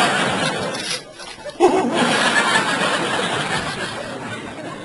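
Audience laughter in two swells. The first dies away about a second in; the second breaks out sharply about a second and a half in and slowly tapers off.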